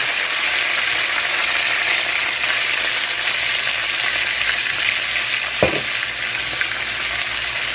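Drained, pressure-canned diced potatoes sizzling steadily in hot grease in a frying pan, with one light knock a little past halfway.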